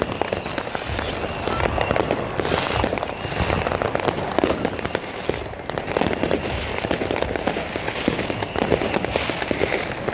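Fireworks going off in a continuous barrage: rockets and firecrackers banging and crackling in quick succession, many overlapping, with no pause.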